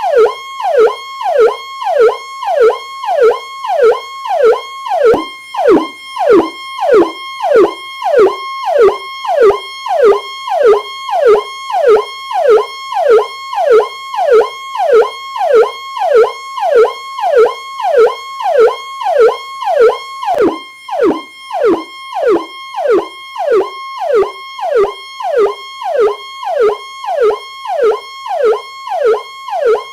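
Powercall police siren cycling rapidly and evenly, about three cycles every two seconds: each cycle holds a high tone, then drops sharply in pitch and snaps back up.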